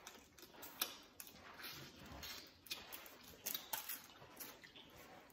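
Close-miked eating sounds: chewing and wet mouth clicks and smacks on boiled crab and seafood, coming irregularly about every half second.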